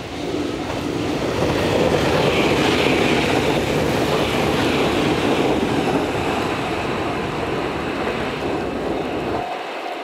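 JR Kyushu 885 series electric limited-express train passing at speed: a rushing rumble of wheels on rail that builds quickly, is loudest a few seconds in, then slowly fades as the train draws away.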